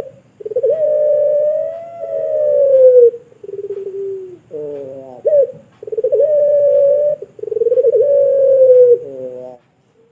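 Puter pelung, a long-voiced Barbary dove, cooing in long drawn-out held notes, each one to three seconds long, broken by short falling notes. The voice is loud and steady in pitch.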